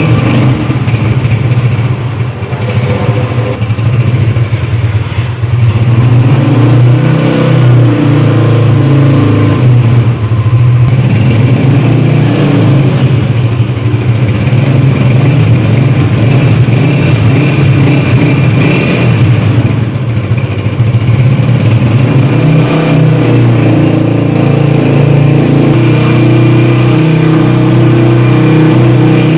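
Honda CG125 motorcycle's single-cylinder four-stroke engine running loudly close up, its engine speed shifting a few times.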